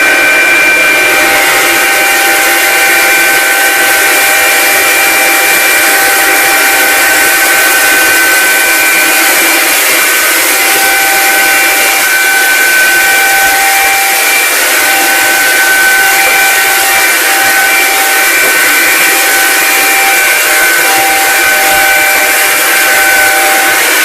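Hoover Linx 18-volt cordless stick vacuum running steadily at full power, a high motor whine over rushing airflow hiss, as it sucks up scattered rice along and under a refrigerator.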